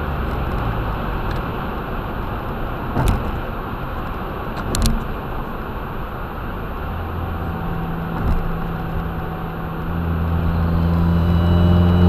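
Turbocharged car driving, heard from a dash cam inside the cabin: steady engine and road noise with a couple of short knocks, and the low engine drone grows stronger near the end.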